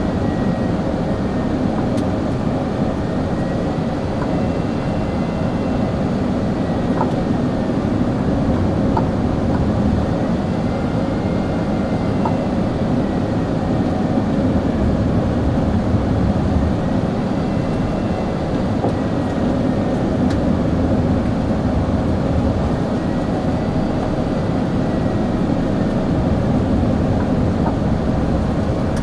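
Airbus A380 cabin noise in flight: a steady, loud rumble of airflow and engines. A faint high whine slowly wavers up and down in pitch over it.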